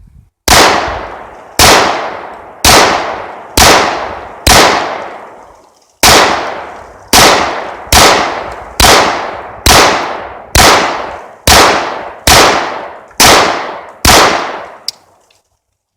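Para-Ordnance compensated pistol fired in a string of fifteen shots. Five come about a second apart, then after a short pause ten more follow a little faster, each shot ringing out briefly. A small click comes near the end.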